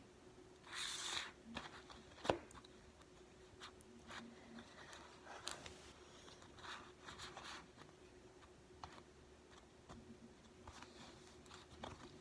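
Faint scraping, rustling and small ticking sounds of hands working a soft play material, with a louder rustle about a second in and one sharp click a little after two seconds.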